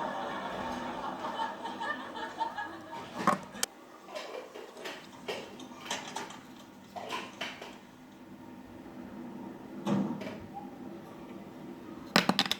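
Irregular clicks and light knocks of small objects being handled, with a louder cluster of clicks near the end.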